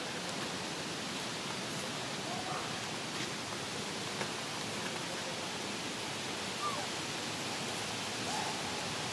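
Steady, even outdoor background hiss, with a few faint short chirps or squeaks about two and a half, six and a half, and eight and a half seconds in.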